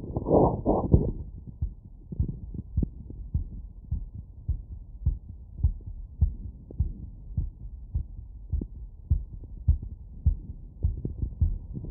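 Heartbeat heard through an electronic stethoscope: a quick, regular lub-dub, a little under two beats a second, as after a run. Two louder rushing noises come in the first second.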